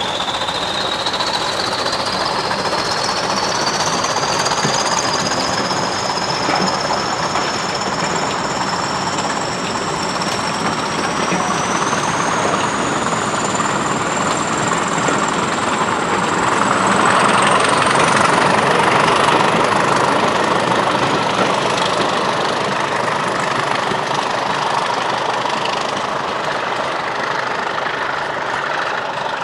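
A pair of Class 20 diesel locomotives working hard as they pull a passenger train away, their English Electric engines running under load. Two high whistles climb in pitch together over the first twenty seconds and then hold steady, the turbochargers spooling up as the locomotives accelerate. The engine noise is loudest a little over halfway through.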